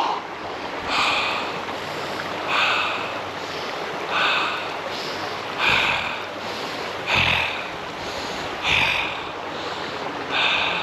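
A swimmer in a cold river breathing hard in short, sharp gasps, about one every second and a half, over the steady rush of the water.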